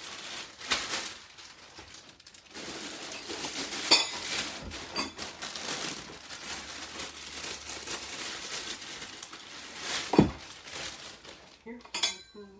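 Plastic packaging bag crinkling and rustling while a doll prop is pulled out and handled, with scattered light clicks and clinks of hard parts and a louder knock about ten seconds in.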